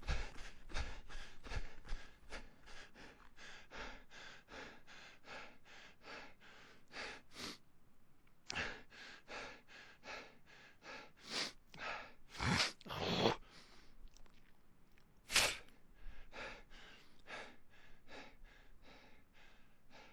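A person panting hard while running: quick, rhythmic in-and-out breaths, about three a second. A few deeper, louder gasping breaths come in the middle before the quick rhythm resumes. Low thuds sound under the first couple of seconds.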